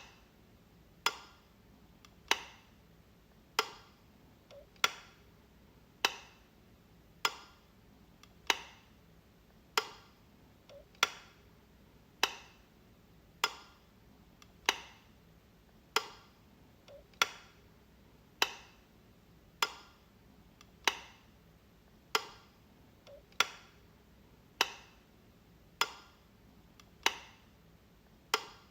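Light switch clicking over and over, one sharp click about every 1.2 seconds.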